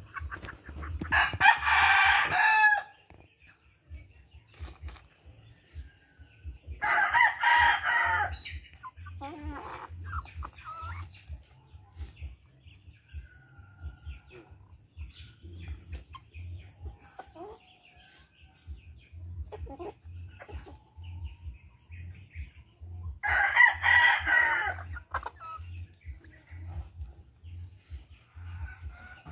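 Heritage-breed rooster crowing three times, each crow about a second and a half long, the last near the end. Quieter clucks and pecking from the feeding flock come in between.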